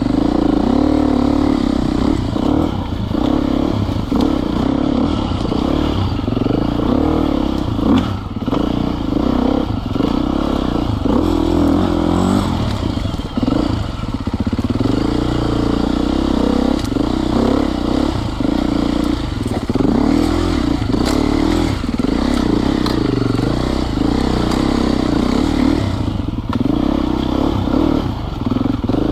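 Enduro dirt bike engine running while being ridden, its pitch rising and falling with the throttle, with occasional knocks and clatter from the bike over rough ground.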